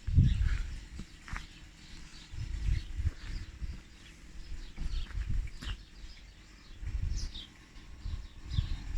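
Small birds chirping and tweeting in short high calls and quick falling notes, over irregular low rumbles of wind buffeting the microphone.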